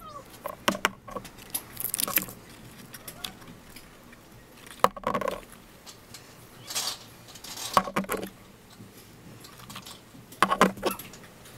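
New metal spark plugs clinking and knocking together as they are picked up and handled, with scattered short clicks and a few brief rustles.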